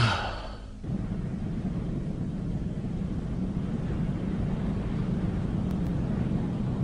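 A sharp hit that dies away within about a second, then a steady low rumble like a large engine running.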